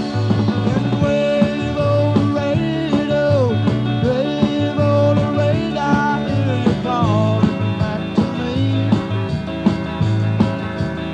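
A rock band playing live, recorded off the soundboard: drums and bass keep a steady beat under lead lines that bend in pitch.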